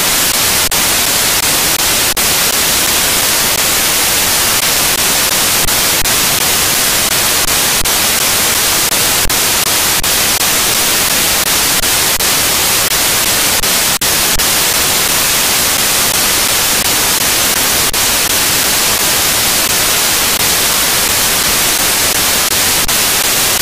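Loud, steady static hiss like white noise, strongest in the treble, with a few faint clicks scattered through it.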